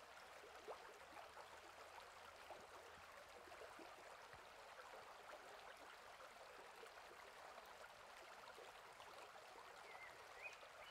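Near silence: a faint steady background hiss with a few light ticks.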